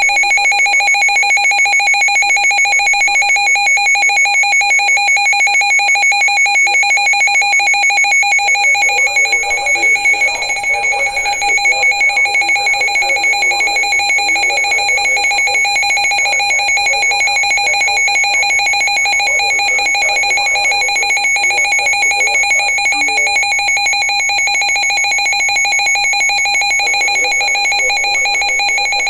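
Emergency alert tone for a severe thunderstorm warning: a loud, steady, high-pitched electronic buzz held without a break. Faint voices can be heard underneath it through the middle.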